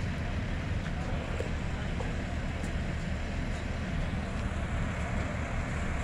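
Steady low rumble of fire apparatus diesel engines running at the scene.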